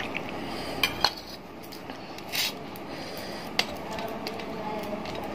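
Metal dishes clinking: a sharp knock at the start, two more about a second in and one later, as a steel bowl of curd is handled over a plate of rice. A short hiss comes in between.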